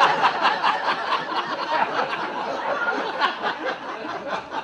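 Audience laughing at a punchline, loudest at first and slowly dying down.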